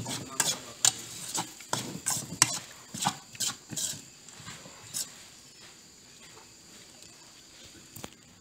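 Clinks and scrapes of a utensil against a steel pan of egg rice as it is scooped out: a quick run of sharp knocks over the first few seconds, then quiet but for a single click near the end.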